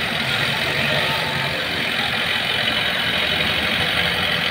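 Engine of an odong-odong road-train tractor unit running steadily at low speed as it pulls its loaded passenger carriage away.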